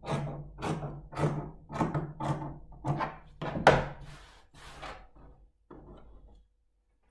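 Scissors cutting through jacket fabric on a table, regular snips about two a second, with a louder knock a little over halfway, then a few fainter handling sounds.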